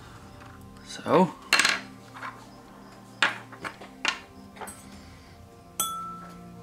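Small metal hobby sculpting tools clinking and clattering against hard objects: about five sharp knocks, the last near the end leaving a short ring. Soft background music plays underneath.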